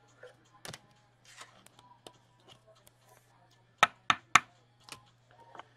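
Trading cards and a hard plastic card holder being handled: light rustles and small taps, then three sharp clicks close together just under four seconds in, over a low steady hum.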